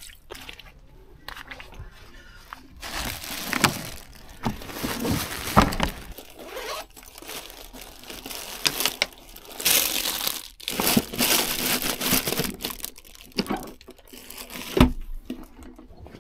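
Rummaging through a mesh bag with plastic wrapping and a plastic bottle inside: rustling and crinkling plastic in irregular bursts, with a few sharp clicks.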